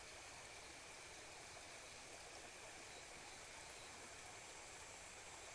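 Near silence: a faint, even hiss that stays the same throughout, with a thin steady high tone and no distinct sounds.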